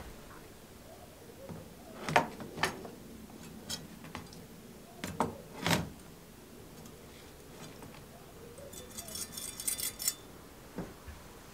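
A yellow-passivated wire handle and its hanging wire knocking and clinking against a plastic tub as it is dipped into rinse water: several sharp knocks a few tenths to a second apart, then a scratchy rattle lasting about a second near the end.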